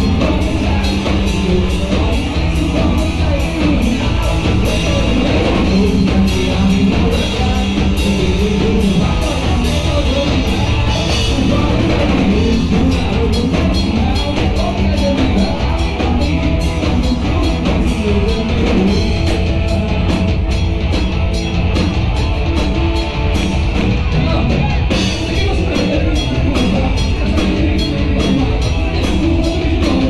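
Live rock band playing: electric guitars, bass guitar and drum kit keeping a steady beat.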